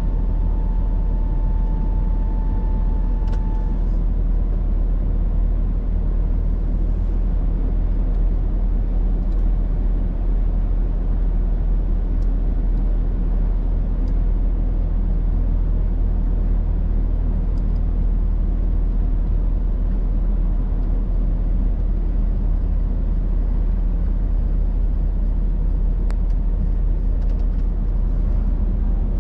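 Steady low rumble of a semi-truck's engine and road noise, heard from inside the cab while driving.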